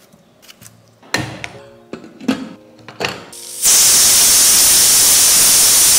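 Stainless-steel pressure cooker's whistle blowing: a loud, steady hiss of escaping steam that starts about three and a half seconds in. It signals that the cooker is at full pressure while the dal cooks. Before it there are a few clinks, some with a short metallic ring.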